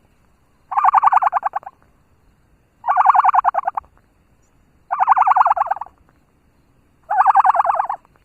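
A bird's rapid rattling call, about a second long, repeated four times at roughly two-second intervals.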